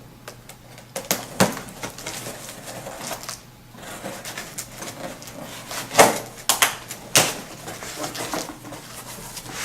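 Cardboard shipping box and the cabinet parts packed in it being handled and opened: rustling and scraping with scattered knocks, the loudest about six seconds in and another about a second later.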